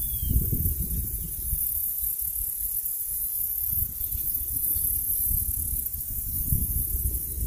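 Wind buffeting the microphone in uneven gusts over a steady high hiss, with a faint short bird chirp or two in the first second or so.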